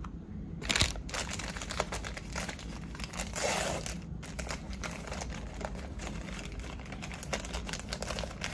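A paper cutlery sleeve crinkling and tearing as it is picked open by hand, with small crackling rustles and a sharp click about a second in.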